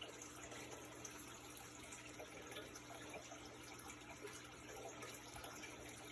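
Faint steady hiss with a low hum: quiet room tone, with a faint steady tone that fades out about halfway through.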